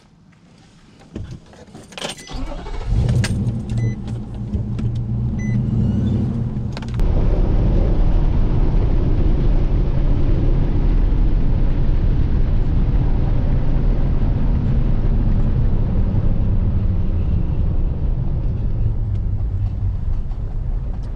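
Pickup truck pulling away and driving down a sandy dirt road, heard from inside the cab. A few sharp clicks come in the first seconds, then a low engine rumble that steps up about seven seconds in to steady engine and tyre noise.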